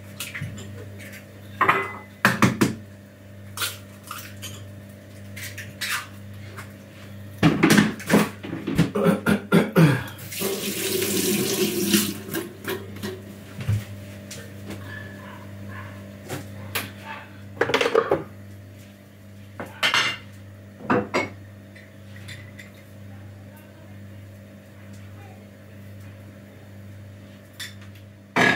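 Kitchen clatter: eggs cracked on a bowl, with dishes and utensils knocking and clinking in short bursts. A tap runs briefly about ten seconds in, over a steady low hum.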